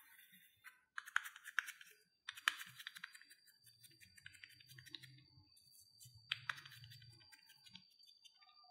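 Hands kneading and pressing soft mashed-potato dough in a glass bowl dusted with cornstarch: faint squishes and pats with scattered sharp clicks, the loudest about a second in, two and a half seconds in and again past six seconds. A thin steady high whine sits underneath from about two seconds in.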